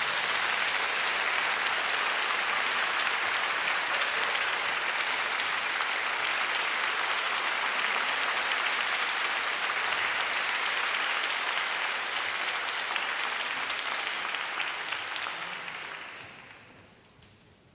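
Concert-hall audience applauding, a steady dense clapping that fades out near the end.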